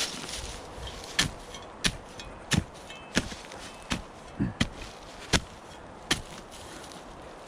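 A digging tool chopping into the ground in a steady series of sharp strikes, about one every 0.7 seconds, stopping about six seconds in.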